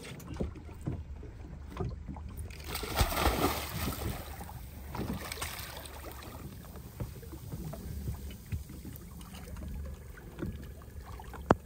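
A person slipping off the side of a small boat into the sea, with a splash and churning water about three seconds in, then quieter splashes as she swims. A steady low rumble runs underneath, and a single sharp click comes near the end.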